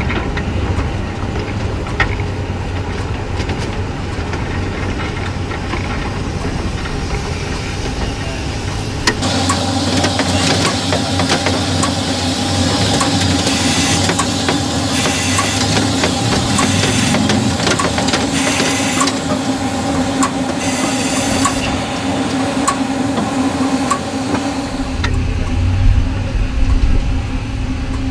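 15-inch gauge miniature steam locomotive, a 2-6-2 modelled on the Sandy River & Rangeley Lakes type, running with its train: a steady low rumble of the carriages on the rails. In the middle, from the cab, comes a steady hum and hiss with five loud hissing puffs of steam about two seconds apart, before the rumble returns near the end.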